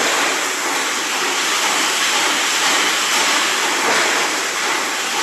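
Steady, dense mechanical noise of a high-speed automatic press machine running on a factory floor, its rapid strokes blending into a continuous din with no separate beats.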